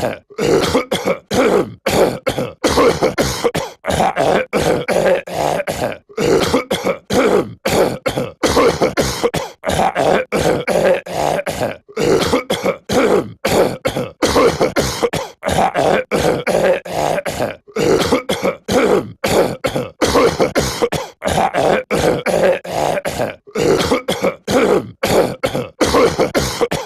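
A cartoon character's voice repeatedly clearing its throat and coughing in quick, short bursts. The same few-second stretch is looped, with a brief break about every six seconds.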